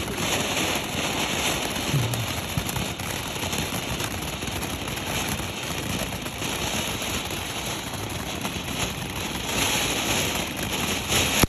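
Firework fountain burning with a steady, dense hiss of spraying sparks that swells a little near the end.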